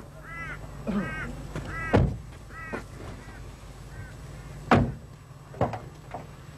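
German Shorthaired Pointers shut in a ute's canopy whining and yelping in short rising-and-falling cries, eager to be let out to hunt. The ute's doors thump loudly, once about two seconds in and again near five seconds, with a lighter knock just after.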